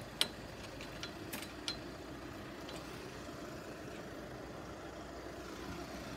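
A few sharp mechanical clicks from the rising level crossing barrier in the first two seconds, then the steady low running of road vehicle engines waiting at the reopened crossing.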